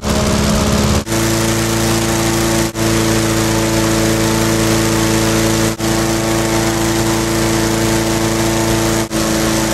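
Engine-driven inflator fan running steadily, blowing cold air into a hot air balloon envelope during cold inflation, with a few short breaks.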